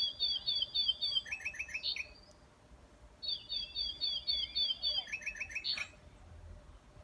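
A songbird singing two phrases, about three seconds apart: each is a quick run of repeated high chirping notes that ends in a few lower, faster notes.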